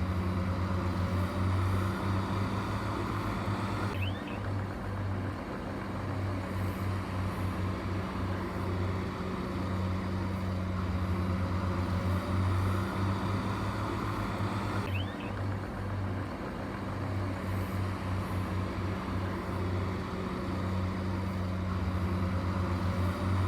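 Heavy diesel engine of earthmoving equipment running steadily with a low, pulsing hum, with two abrupt shifts in the background noise about 4 and 15 seconds in.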